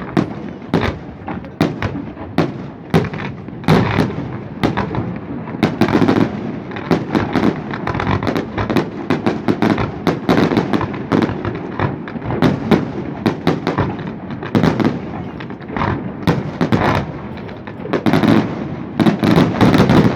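Fireworks display: a rapid, continuous barrage of bangs and crackling pops with rumbling echo, thickening into a dense volley near the end.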